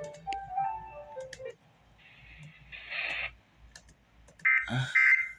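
A short run of stepped electronic tones, with scattered sharp clicks, then two loud buzzy electronic tone bursts near the end.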